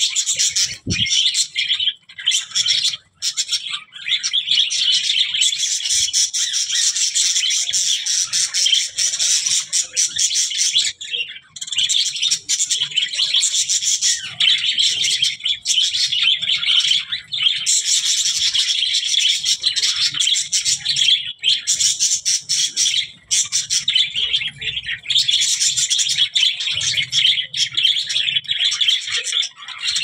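A flock of budgerigars chattering and warbling, a dense, continuous twittering with only a few brief pauses.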